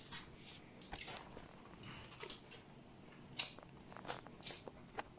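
Mouth sounds of someone eating boiled crab meat picked by hand: chewing and lip smacks, heard as short, scattered clicks.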